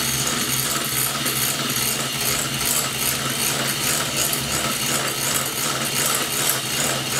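Handheld electric mixer running steadily, its beaters whisking egg yolks and sugar in a glass bowl.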